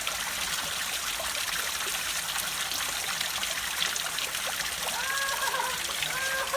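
Shallow river water trickling and flowing over rocks, a steady rush. Near the end, two short pitched calls sound over it.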